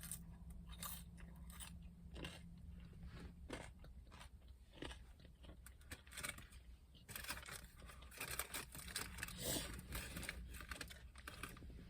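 A person chewing McDonald's fast food close to the microphone: irregular wet crunching and mouth clicks, busiest in the second half, over a steady low hum.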